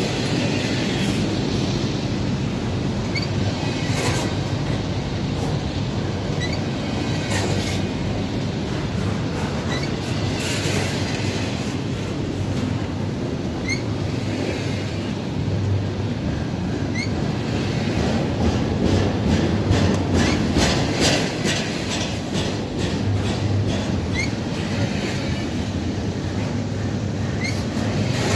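Double-stack intermodal well cars of a Norfolk Southern freight train rolling past close by: a steady rumble of steel wheels on the rail, with clicks as the wheel sets cross rail joints and short wheel squeaks every few seconds. A quick run of clicks comes about two-thirds of the way in.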